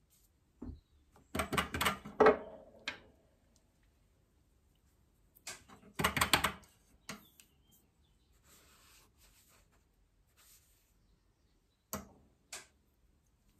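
Three clusters of rapid clicks and clattering from painting materials being handled. Between them comes a faint, soft scrubbing, like a brush worked over sketchbook paper.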